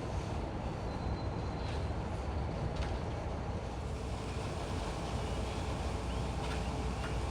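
Heavy machinery running steadily with a low rumble, with a few faint ticks over it.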